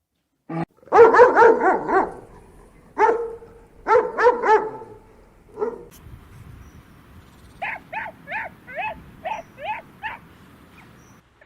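Dog barking in quick bursts of three to five barks. Later comes a run of about nine quieter, higher-pitched yips at a steady pace.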